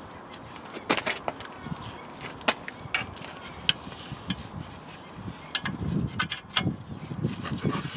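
Scattered sharp clicks and taps of hand tools and metal parts while an auxiliary belt is worked over the pulleys and tensioner, with a few duller knocks from about six seconds in.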